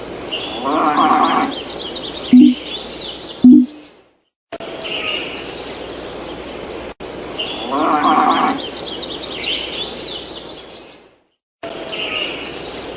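Looped countryside sound-effect track: birds chirping, with a louder animal call and two short, loud low notes, breaking off into a brief silence about four seconds in and again near the end before starting over.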